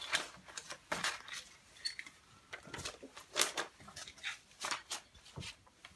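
Construction-paper pages rustling and crackling as they are turned by hand, a string of irregular sharp crinkles.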